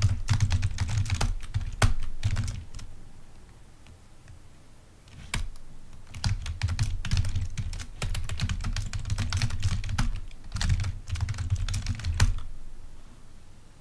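Typing on a computer keyboard in quick runs of clicks, with a pause of about two seconds in the middle.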